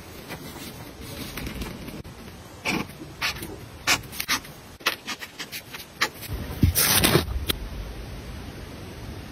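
Acrylic paint marker's tip scratching and tapping on textured paper in a run of short strokes as letters are written, over a steady hiss. A longer, louder scrape comes about seven seconds in.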